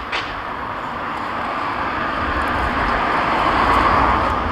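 A passing vehicle on the street: a steady rushing noise that swells gradually, loudest near the end.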